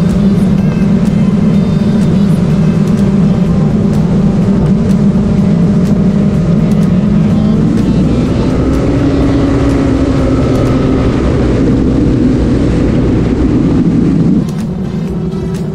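Motorcycle engine running steadily at highway speed, with wind rushing over the camera's microphone. The engine's pitch rises a little past the middle, and the sound drops in level near the end.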